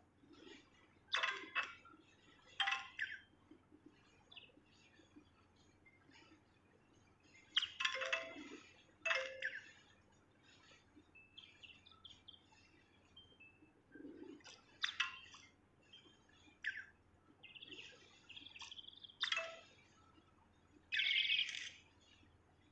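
Birds calling outdoors: scattered chirps, with several louder bursts of calls a few seconds apart over a faint background.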